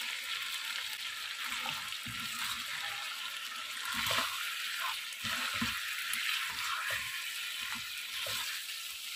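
Chicken pieces and a wet onion, garlic and tomato paste sizzling in hot oil in a pan. From about a second and a half in, a spatula stirs the paste in, scraping against the pan in irregular strokes.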